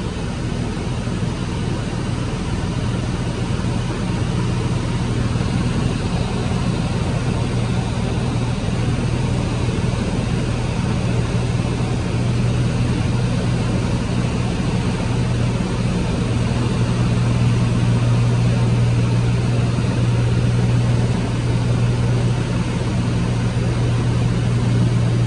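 Steady drone of a single-engine light plane's piston engine and propeller, heard inside the cabin, growing a little louder about two-thirds of the way through.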